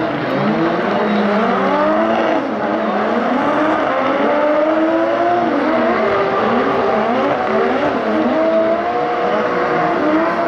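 High-powered drift car engines revving hard, several at once, their pitch rising and falling constantly.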